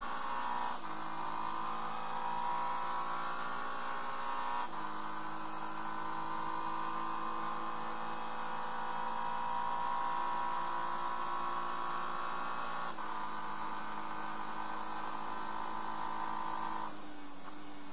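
Acura NSX GT3 race car's twin-turbo V6 heard from inside the cockpit, running at a steady speed with a few sudden steps in pitch as gears change. Its pitch falls near the end.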